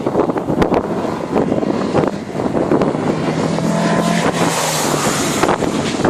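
A rally car's engine running hard as it passes, its steady note clearest about three to four and a half seconds in, followed by a rush of noise. Wind buffets the microphone throughout.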